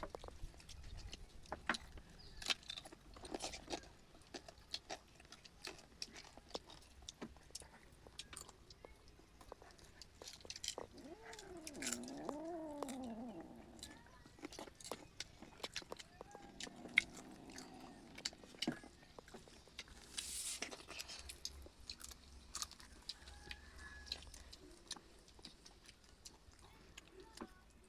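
Close-up eating sounds: chewing with frequent short, crisp crunches and clicks. A short wavering, pitched call rises and falls about halfway through.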